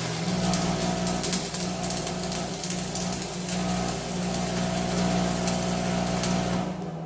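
Welding arc crackling and sizzling steadily on the cracked tractor bucket, stopping shortly before the end, over a steady low electrical hum.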